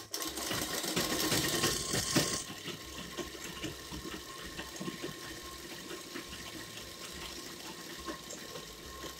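Black straight-stitch sewing machine running steadily while a seam is stitched. It starts loudest and brightest for the first two and a half seconds, then runs on slightly quieter and even.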